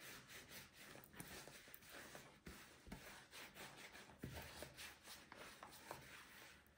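Faint rubbing and pressing of hands kneading soft yeast dough in a plastic bowl, with a few soft knocks.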